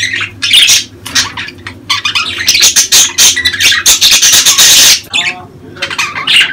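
Budgerigars chattering in breeding season: a fast run of short chirps and harsh squawks, thickening into a denser scratchy stretch about four seconds in, with a brief warbled call just after.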